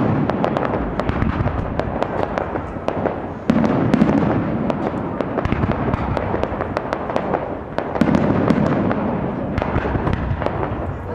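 Fireworks display: a dense, continuous crackle of many small pops from the bursting stars, with a fresh, louder volley about three and a half seconds in and another about eight seconds in.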